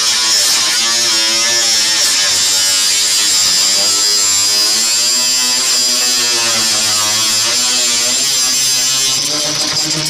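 Makita 18-volt cordless angle grinder cutting through galvanised corrugated steel roofing sheet: a continuous high grinding screech over the motor's whine, with the motor's pitch wavering up and down as the disc bites.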